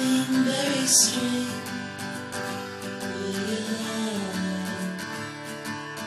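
Acoustic guitar music from a lo-fi psychedelic folk song, with held melodic notes over the guitar. A brief bright splash sounds about a second in.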